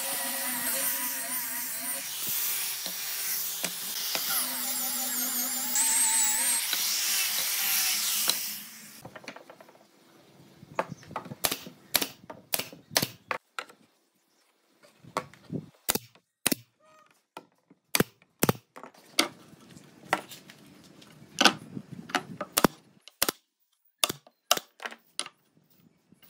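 Small electric angle grinder with a sanding disc running against a pine board, a steady whir with a slightly wavering pitch, which stops about nine seconds in. Irregular sharp wooden knocks and clicks follow as pine boards are laid and fitted onto a frame.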